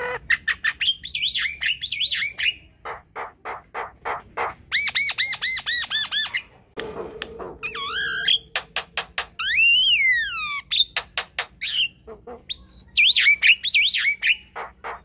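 Javan myna in full song: a varied run of sharp clicks, chattering and clear whistles. There is a quick series of repeated whistled notes about a third of the way through and a long falling whistle about two-thirds in.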